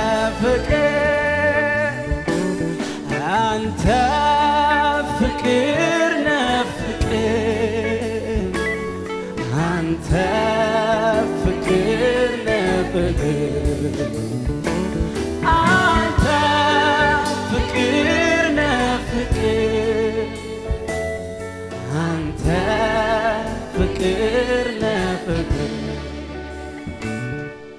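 Male lead vocalist singing an Amharic gospel worship song with strong vibrato, over sustained live-band accompaniment; the music drops in level near the end.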